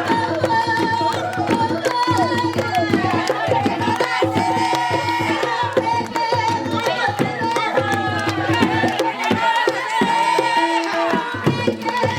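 Panamanian tamborito: hand drums beating a busy rhythm under sung voices.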